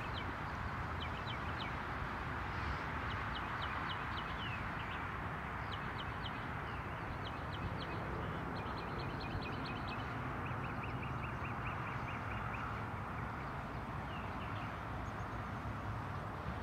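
A songbird singing phrase after phrase of quick, repeated short high notes over a steady outdoor background hiss.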